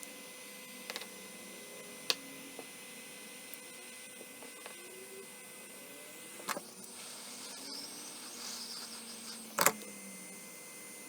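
A few sharp clicks and taps of small tools working on a phone's body, with a brief scratchy scraping for a few seconds near the end, over a steady faint hiss. The loudest click comes near the end.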